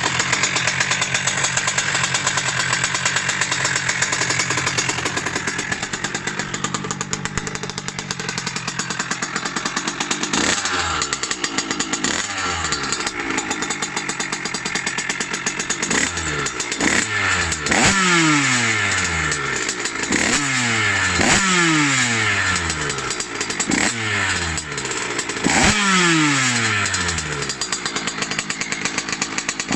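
2Fast 77cc two-stroke single-cylinder engine with a Katrace expansion-chamber exhaust idling steadily for about ten seconds. From then on the throttle is blipped again and again, roughly every one to two seconds: each time the revs shoot up and fall back.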